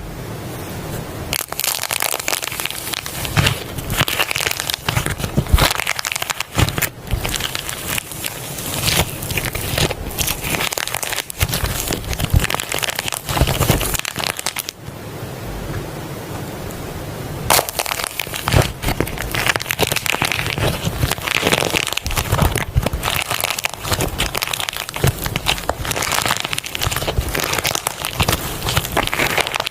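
Slime being squeezed and worked by hand, giving dense crackling and popping clicks, with a brief let-up around the middle.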